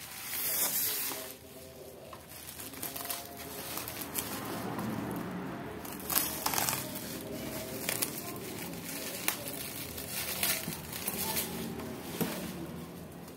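Plastic bubble wrap crinkling and tearing as it is cut with scissors and pulled off a cardboard box, an irregular rustle with louder crackles about half a second in, around six seconds, and several more toward the end.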